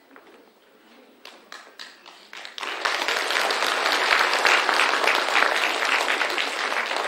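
Audience applause: a few scattered claps at first, swelling about two and a half seconds in to full, steady clapping that starts to fade near the end.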